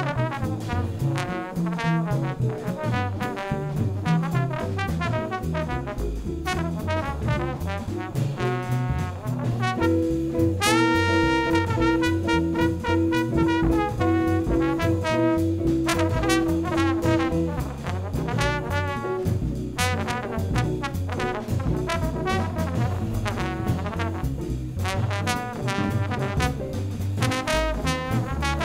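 A live jazz ensemble plays, with the trombone out in front over a walking upright bass and busy drums and cymbals. From about ten seconds in, one horn note is sounded over and over for several seconds.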